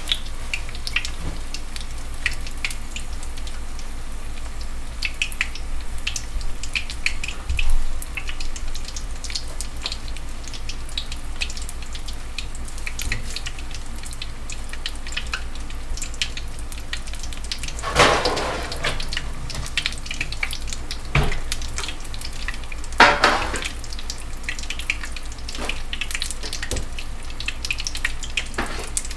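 Egg rolls deep-frying in hot peanut oil in a stainless steel pot: a steady crackling sizzle with many small pops. Past the middle the sizzle swells louder twice, each swell lasting about a second.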